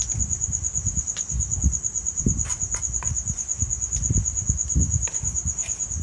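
A cricket trilling steadily in one high, pulsing tone, with scattered low thumps and short clicks of a knife blade scraping and tapping on a wooden chopping board.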